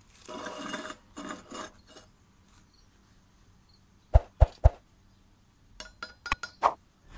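A welded steel plate scraped twice across a granite surface as gloved hands move it, then sharp metal taps: three hard ones about four seconds in, and a quicker run of lighter, ringing ticks near the end as a thin metal rod touches the plate.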